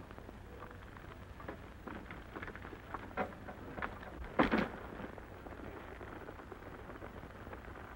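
Scattered small knocks and rustles as a stagecoach's express bag is lifted and tossed down to a holdup man, with one short louder sound about four and a half seconds in, over the hiss and hum of an old film soundtrack.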